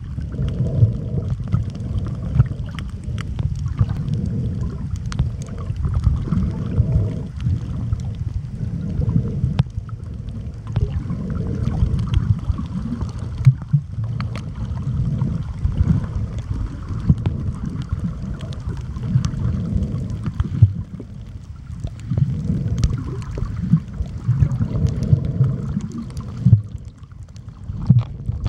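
Muffled underwater noise picked up by a camera held under the water while snorkeling: a low, steady rumble of moving water that swells and eases every few seconds, with faint scattered clicks.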